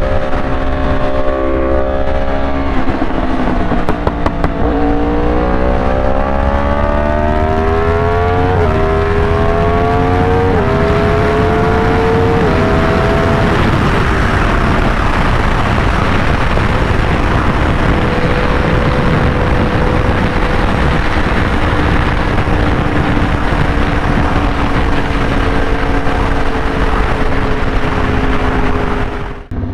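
A 2023 Yamaha R1's crossplane inline-four engine, heard from the rider's seat, dips briefly, then pulls hard through the gears, its pitch climbing in four quick runs each cut by an upshift. From about halfway in it settles to a steady cruise under loud wind and road rush.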